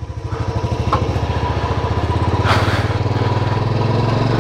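Motorcycle engine pulling away from a stop, its pulsing exhaust beat getting steadily louder as the bike accelerates.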